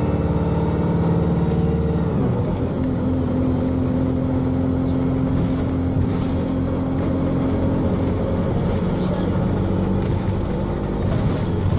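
Alexander Dennis Enviro200 single-deck bus's diesel engine running hard. About two seconds in, its note shifts, then holds steady, with a thin high whine over it.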